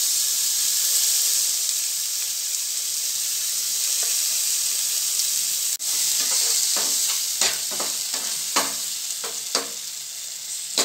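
Spinach purée sizzling as it fries in a hot nonstick frying pan. In the second half a spatula stirs it, scraping the pan in a run of short strokes.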